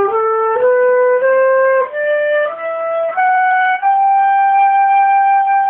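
A flute-like wind instrument playing a rising run of short, steady notes, then holding one long high note for the last two seconds.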